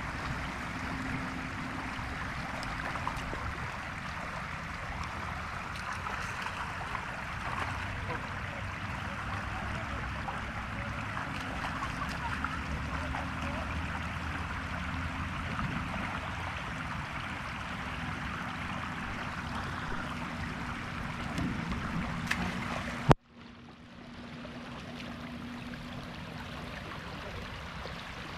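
Shallow floodwater flowing fast across a road and splashing around the legs and net poles: a steady rushing hiss. About 23 seconds in, a sharp click and a sudden drop, after which the water continues more quietly.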